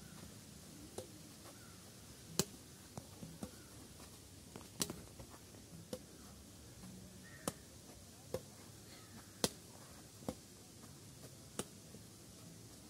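Badminton rackets striking a shuttlecock in a rally: short sharp pings about once a second, some loud and some faint.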